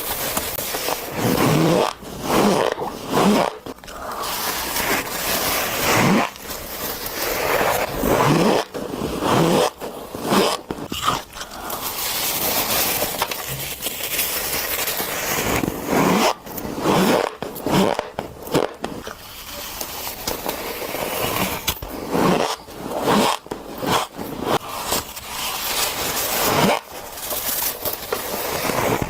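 Shaved ice being bitten and chewed close to the microphone: squeaky, crunching chews one after another with short gaps between them.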